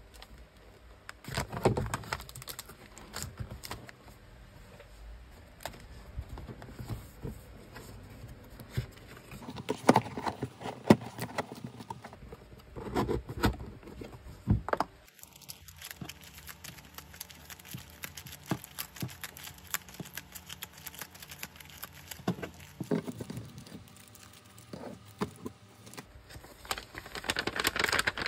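Paper and plastic packaging handled by hand: printed paper and cellophane sleeves rustling and crinkling, with scattered soft taps as items are set into a cardboard box. The loudest crinkling comes near the end, as a paper wrapper is folded around a stack of sleeved items.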